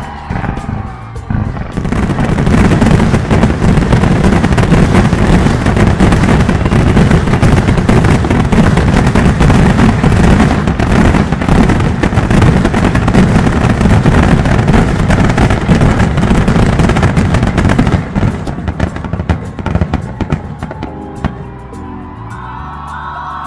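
Fireworks barrage at close range: a dense, continuous rattle of bursts and crackle, many reports a second. It starts about two seconds in and thins to scattered pops around eighteen seconds.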